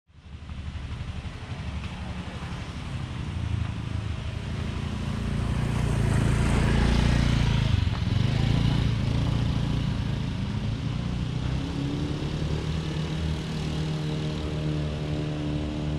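A motorcycle passes close by, its engine rising to its loudest around seven or eight seconds in and then fading. From about twelve seconds in, a steady engine hum holds one even pitch.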